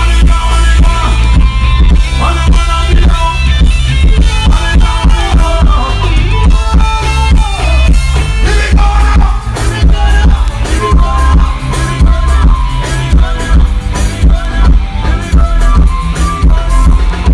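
Loud music with a heavy bass and a steady drum beat, with a melodic lead line over it.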